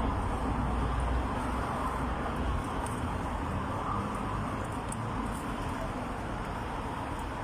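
Steady outdoor traffic noise with a low engine rumble that eases off about two and a half seconds in.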